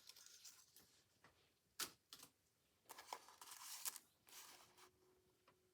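Faint paper handling: a few short, soft rustles and scrapes of paper being moved on a tabletop, in otherwise near silence.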